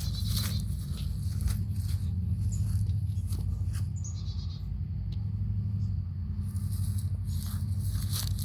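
Footsteps of someone walking a nature trail, irregular steps over a steady low rumble.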